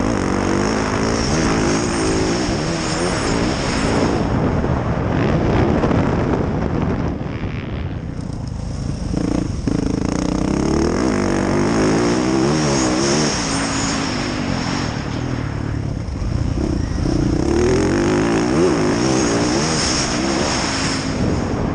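2019 Yamaha YZ450F's 450 cc four-stroke single-cylinder engine being ridden hard, its pitch rising and falling again and again as the throttle is opened and closed, over a constant rushing noise. The throttle eases off briefly about eight seconds in and again near sixteen seconds.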